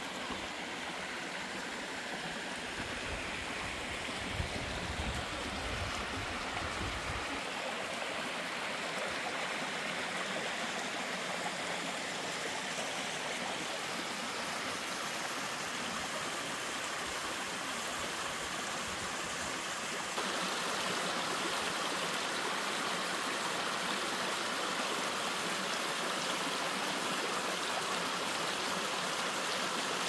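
Small tiered waterfall on a mountain stream: water running steadily over rock ledges, a little louder about two-thirds of the way in.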